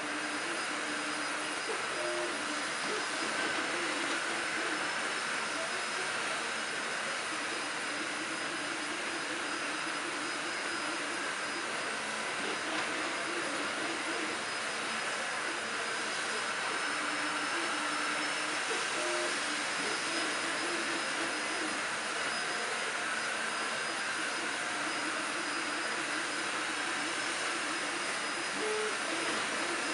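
Pro Avatar III dual-extrusion 3D printer running mid-print: its print-head cooling fans give a steady whir, while the stepper motors add short, shifting whining tones as the head moves.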